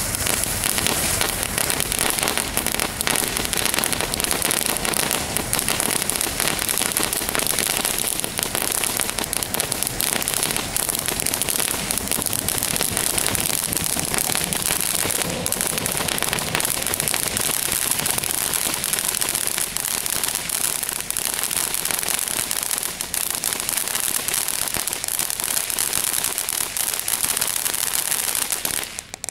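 A 5-inch shell fountain firework spraying sparks: a steady loud hiss shot through with dense crackling, stopping abruptly near the end as the fountain burns out.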